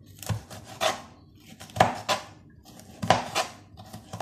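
Knife chopping bitter gourd into small pieces on a cutting board: separate sharp knocks of the blade on the board, often in pairs, roughly one every second.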